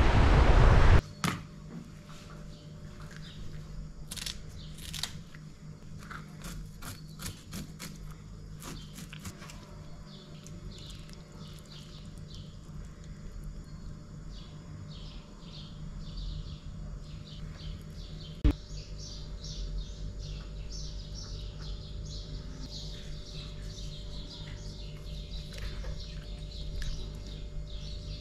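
Surf and wind on the microphone for about the first second, then a cut to a quieter room: scattered clicks and scrapes of hands working a sea bass on a marble counter, one sharp knock about two-thirds of the way through, and small birds chirping busily through the second half.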